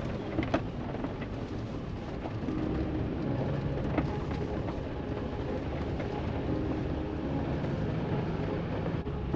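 A vehicle driving slowly, heard from inside: a steady engine and road rumble, with a couple of short knocks or rattles, one about half a second in and one near four seconds.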